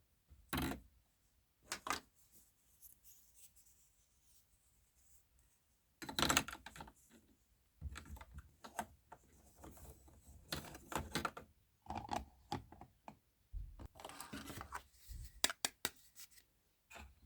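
Close-up handling and unpacking of small kitchen-set pieces and their packaging: irregular clicks, taps, scrapes and rustling. There are a couple of sharp clicks at the start, a lull, then busier handling from about six seconds in.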